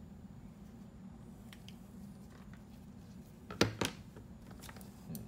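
Two sharp knocks in quick succession a little past halfway, and a lighter one near the end, as a wooden test joint held by a spring clamp is set down on a workbench, over a steady low hum.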